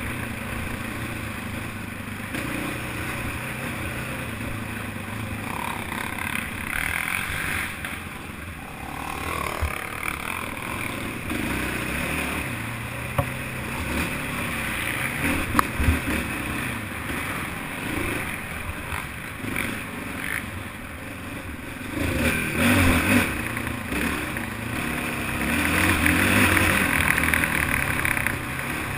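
Racing ATV engine running off-road, revving up and down as the throttle comes on and off. There are a few sharp knocks about halfway through and harder revving in the last several seconds.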